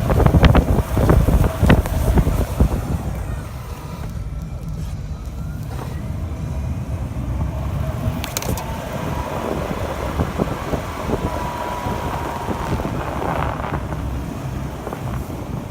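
Snowplow vehicle's engine running with a steady low rumble, with wind noise on the microphone. There are several knocks in the first two seconds.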